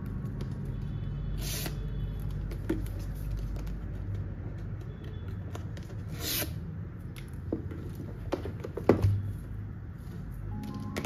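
Paper tear-off seal strips being pulled from a cardboard iPad box: two short ripping tears, about one and a half seconds in and again about six seconds in. Between them come light taps and knocks of the box being handled, the sharpest about nine seconds in.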